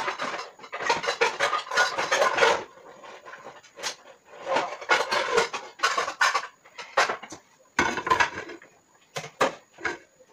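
Pots, pans and cutlery clattering and knocking as cookware is handled, in several bursts with short pauses between them.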